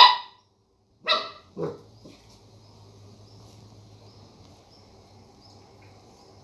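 Border collie puppy barking at a lemon wedge: one sharp bark right at the start, then two more in quick succession about a second in.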